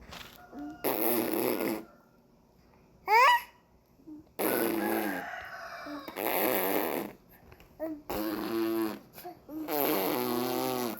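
Baby vocalising in a run of short bursts, each about a second long, trying out a new sound. About three seconds in comes a brief high squeal, the loudest sound of the run.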